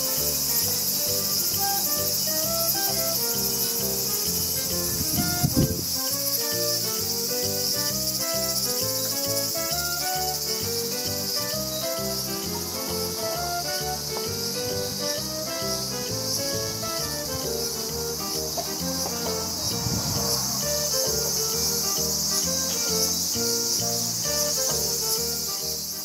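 Steady high-pitched drone of summer insects, with background music: a melody of short stepped notes over low chords. A single thump comes about five and a half seconds in.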